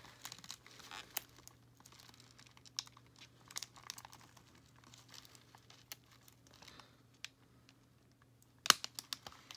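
Plastic doll packaging crinkling, with scattered small clicks as hands work a doll loose from its box fastenings. One sharper, louder click comes near the end.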